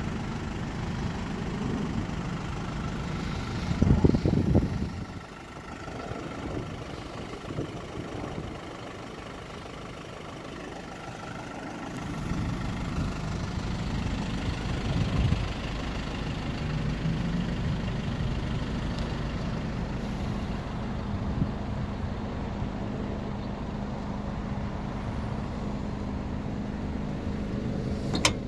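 1988 Isuzu Bighorn's 2.8-litre turbo-diesel engine idling with a steady low drone, with a brief loud low rumble about four seconds in. Near the end, a few sharp clicks as the rear door handle is worked.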